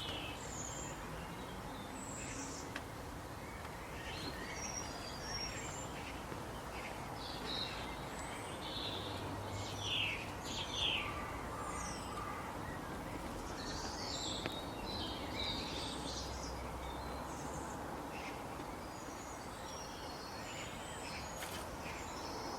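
Scattered short, high chirps from small animals over a steady outdoor background hiss, with a busier flurry of calls in the middle.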